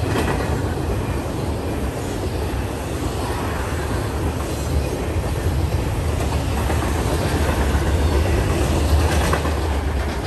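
BNSF intermodal freight train's cars, carrying highway trailers on flatcars, rolling past: a steady rumble of steel wheels on rail with occasional knocks.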